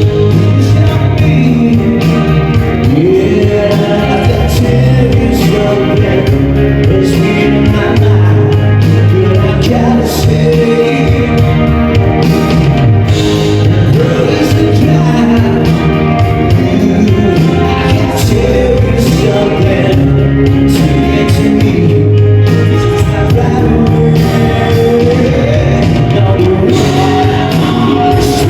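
Live band playing loud amplified music with electric bass, drums and a sung or melodic lead line, picked up with the reverberation of a large hall.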